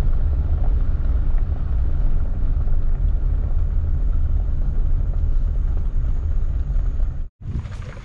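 Car driving slowly along a dirt road: a steady low rumble of tyres and engine, which cuts out for a moment near the end.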